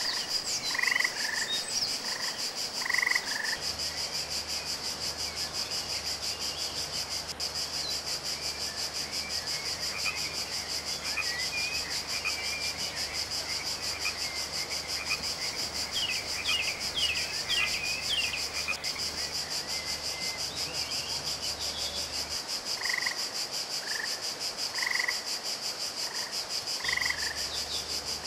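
Frogs croaking in short calls every second or two over a steady, high, pulsing chirring of insects; a few quick bird chirps come in around the middle.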